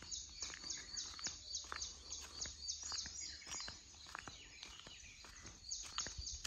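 A bird calling in a rapid series of high, evenly repeated chirps, about three a second, pausing for a moment and starting again near the end. Footsteps on brick paving tap faintly underneath.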